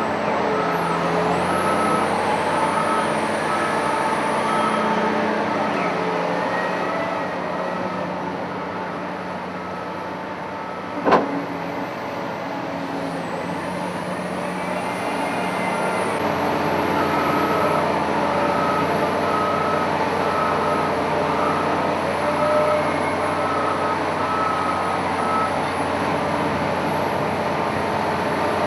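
A Cat 992K wheel loader's diesel engine running steadily, with its reversing alarm beeping a little more than once a second in two spells. There is a single sharp knock about eleven seconds in.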